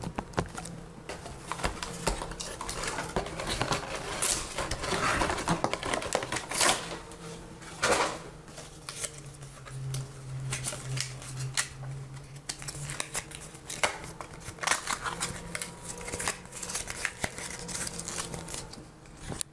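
Close handling noise: irregular clicks, scrapes and rustles, as of a cardboard box being handled and folded, over a low steady hum that grows louder in the middle.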